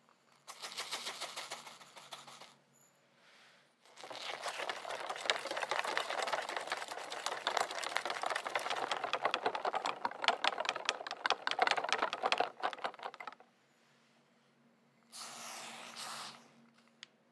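Sugar poured from a cup into a glass bowl of liquid for about two seconds. Then a silicone-coated balloon whisk beats the mixture in the glass bowl with fast, even strokes for about nine seconds. A brief second spell of whisking comes near the end.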